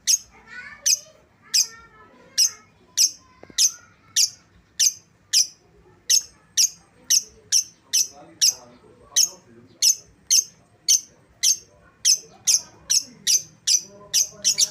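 Lovebird giving a long run of short, sharp, high-pitched chirps, about two a second, coming faster near the end.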